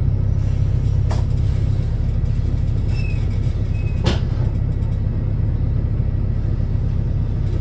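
Wrightbus New Routemaster hybrid bus running, with a steady low drone and two sharp knocks, about a second in and about four seconds in.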